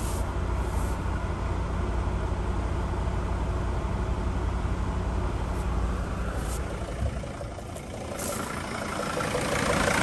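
Dodge T1N Sprinter's diesel engine idling steadily, heard inside the cab with the dashboard blower fan just switched on for the air conditioning. Near the end the idle becomes louder and brighter, heard at the open engine bay.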